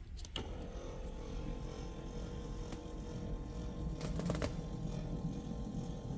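The switch of a McLeod power drop-down bolster seat clicks, then the seat's small electric motor runs with a steady whine; a few clicks about four seconds in.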